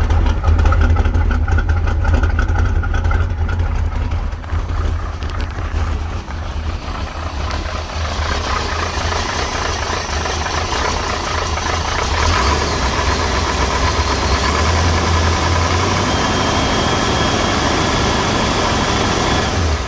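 Chevrolet 350 small-block V8 idling steadily after a cold start without the choke, with a mechanical ticking and rattle running through it that the owner puts down to worn lifters.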